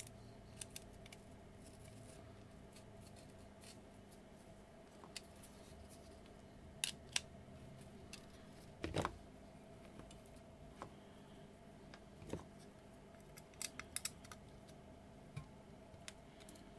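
Scattered small metallic clicks and taps of a screwdriver and screws as a mini speaker is screwed onto a Eurorack front panel, over a faint steady hum.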